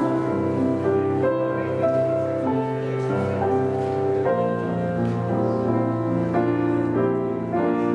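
Slow instrumental music on a keyboard instrument: held chords changing about once a second.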